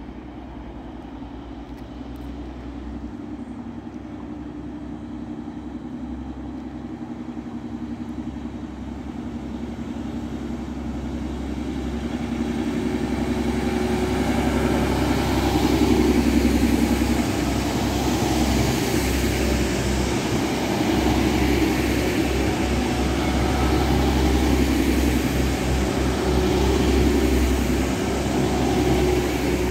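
TransPennine Express diesel multiple unit, of the Class 185 type that the title names, pulling in along the platform. Its engine drone grows louder over about fifteen seconds, then holds steady as the carriages run alongside.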